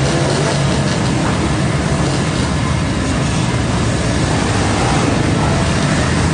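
Sport motorcycle engine running at low speed with the engines of quad bikes close ahead, under a steady rough rush of noise.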